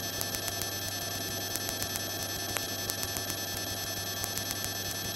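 Steady electrical hum and whine with a fast, even ticking of about nine ticks a second, the kind of interference heard on a cockpit intercom audio feed.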